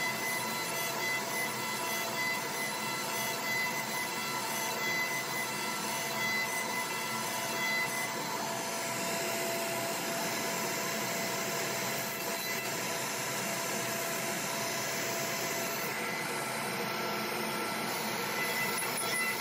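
CNC router spindle running steadily with a high whine as a 3/8" compression spiral bit cuts through a wooden dashboard panel, over the rush of the dust extraction.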